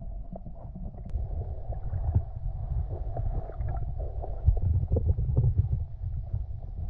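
Muffled rumbling and sloshing of water picked up by a camera underwater, with faint clicks and a louder swell about two-thirds through.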